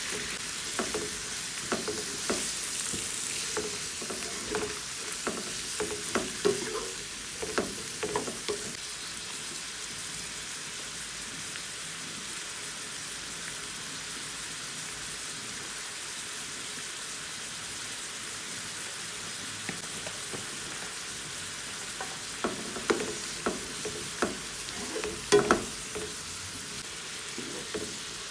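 Food sizzling as it fries in a pan, a steady hiss throughout. A utensil stirring and knocking against the pan gives clusters of sharp clatters during the first several seconds and again near the end.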